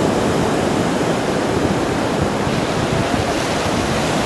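Steady wash of ocean surf breaking on the beach, with wind buffeting the microphone.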